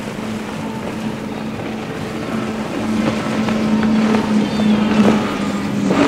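Outboard motors on a center-console powerboat running at speed: a steady drone over a rushing hiss, growing louder about halfway through.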